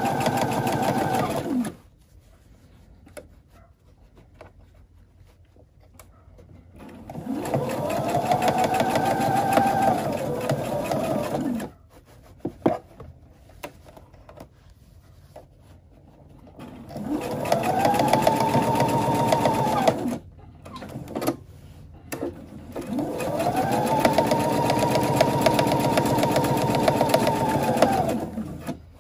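Electric sewing machine stitching a seam in four separate runs with pauses of several seconds between them. Each run speeds up at the start and slows down at the end.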